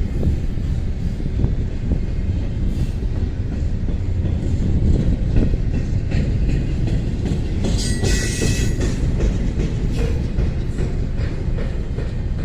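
Train rolling slowly past, its cars rumbling and clattering over the rail joints. About eight seconds in, a brief metallic wheel squeal rises over the rumble.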